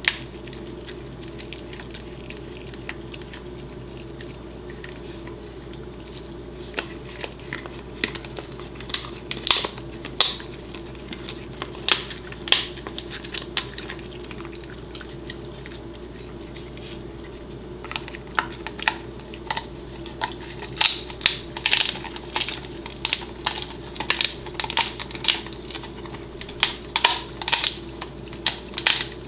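Pembroke Welsh Corgi gnawing a dried buffalo trachea chew: irregular crunches and clicks of teeth on the hard, ridged treat, scattered in the first half and coming thick and fast through the second half.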